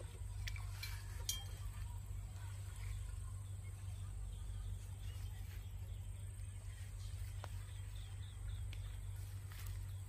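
Quiet outdoor ambience: a low steady rumble with a thin, steady high-pitched insect drone over it, a few soft clicks near the start, and a short run of faint bird chirps about seven seconds in.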